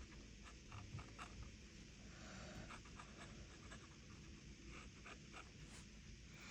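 Faint, irregular scratching of a pen nib on sketchbook paper as ink lines are drawn.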